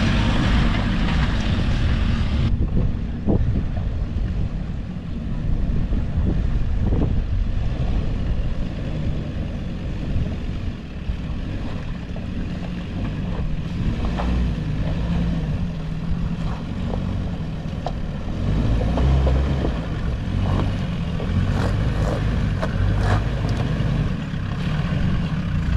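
Land Rover engine running at low revs on a rough off-road lane, with scattered knocks and clatter from the vehicle over uneven ground. A hiss cuts off suddenly about two and a half seconds in.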